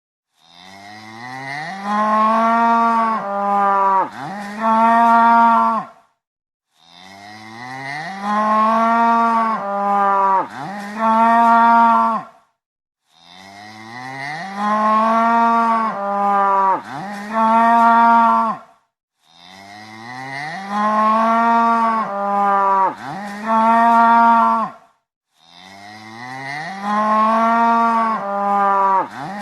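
A cow mooing, the same long moo repeated five times about six seconds apart. Each moo starts low, climbs in pitch, and is held in three drawn-out parts.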